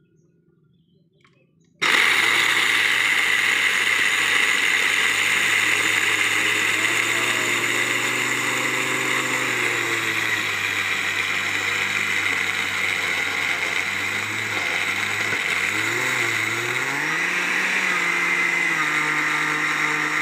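Electric blender grinding fried peanuts, switched on about two seconds in and running steadily; its motor pitch dips and then climbs again in the last few seconds.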